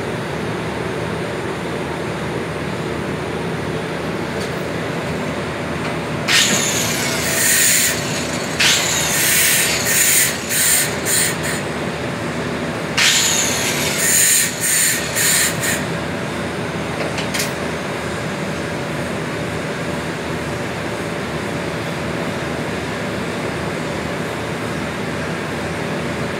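Steady workshop hum, with two runs of harsh, high-pitched metal-on-metal strokes, each a few seconds long, about six and thirteen seconds in, as a hand tool works a metal piece held in a bench vise.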